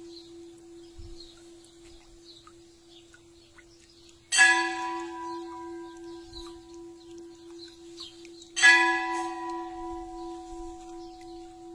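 Church bell tolling a death knell: slow single strokes, two in this stretch about four seconds apart, each leaving a long, lingering hum.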